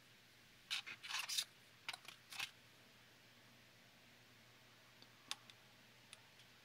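Small plastic capsule-toy pieces clicking and clattering in the hands: a quick flurry of clicks in the first couple of seconds, then a few single light clicks about five and six seconds in as a small part is fitted against the figure.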